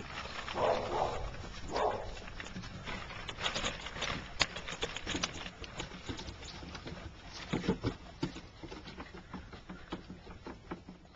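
Puppies' paws pattering and scrabbling on the wooden slats and boards of an obstacle-course bridge and platform: many quick light knocks. Two brief puppy yips come in the first two seconds.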